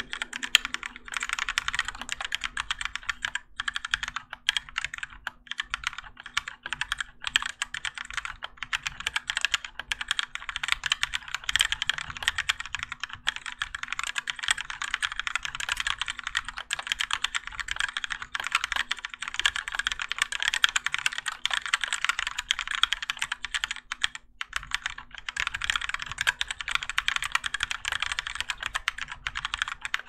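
Continuous typing on a Keychron K4 mechanical keyboard with Gateron Yellow linear switches and stock ABS keycaps: a dense run of key clacks with a few brief pauses.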